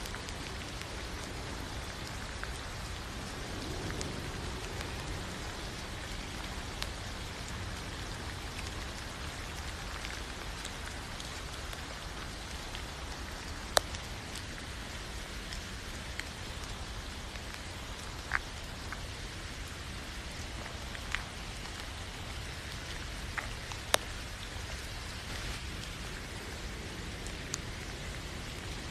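Steady rain falling, an even hiss. Now and then a single louder drop ticks close by, the sharpest about halfway through and again near the end.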